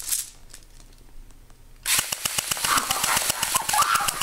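Airsoft AK-74 rifle opening up on full auto about two seconds in: a sudden, rapid, unbroken stream of sharp shots.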